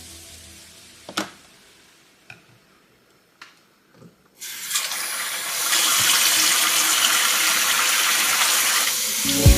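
A few light clicks, then a water tap turned on about four seconds in and running steadily into a sink.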